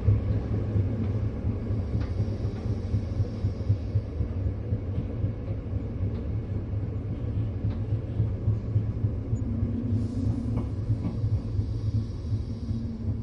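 Low, steady rumble of a train heard from inside the carriage as it runs. A steadier low hum joins about ten seconds in.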